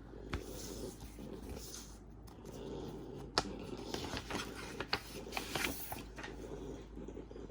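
Record packaging being handled: a run of sharp clicks and crinkling rustles, busiest in the middle, over a steady low hum.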